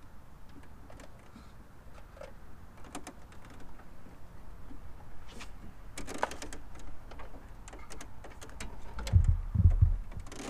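A plastic wiring harness and its connectors being handled and fed through a body grommet hole: light clicks and rustles, a brief scraping rush about six seconds in, and a few dull thumps near the end.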